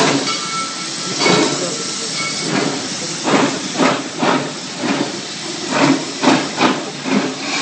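Steam locomotive running along the track: a steady hiss of steam, with exhaust chuffs about every half second from about three seconds in.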